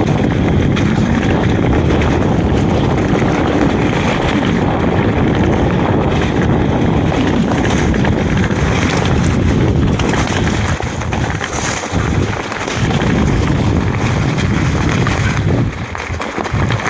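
Wind buffeting the microphone and the rumble of a mountain bike riding a rough trail, a loud steady rush that eases briefly a couple of times in the second half.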